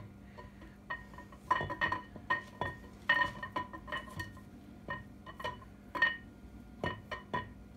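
Loose steel parts inside a 7.3 IDI diesel engine block clinking and knocking as they are pushed around by hand, about a dozen irregular hits, each leaving a short metallic ring.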